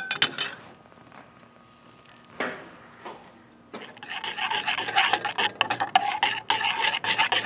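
A few clicks of tongs on a grill. About four seconds in, a sizzle with crackling starts suddenly as boiled, still-wet artichoke halves are laid cut side down on a hot grill grate to char.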